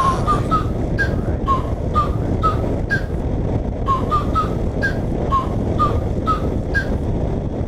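Harley-Davidson Road Glide riding at speed on a wet road: a steady rush of wind and engine noise with scattered clicks. Over it, a short high chirp repeats about twice a second.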